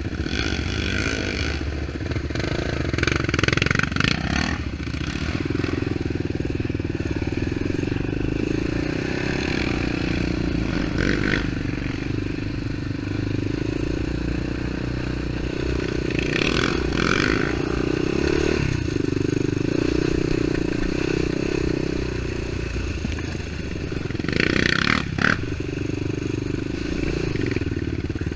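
ATV engine running under way on a muddy trail, its pitch rising and falling with the throttle. A few brief hissing or scraping bursts come over it now and then.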